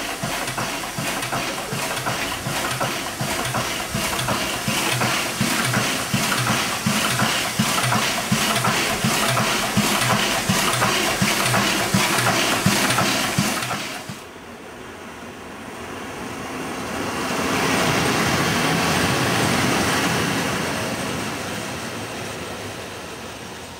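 Steam locomotive 498.104 'Albatros' standing, hissing steam with a fast, uneven pulsing. About 14 seconds in this gives way to a smoother rail noise that swells and then fades as an electric locomotive passes.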